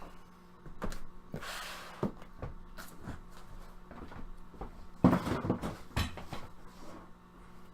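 Handling and opening a cardboard trading-card box: a series of light knocks and clicks, a short rustle of cardboard or wrapping about one and a half seconds in, and a cluster of knocks and scrapes around five seconds in.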